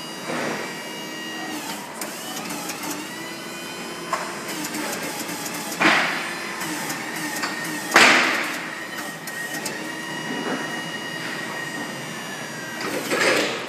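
Electric motor of a Rhino battery changer running with a steady whine as its adjustable roller bed is worked, broken by loud metal clunks about six and eight seconds in and again near the end.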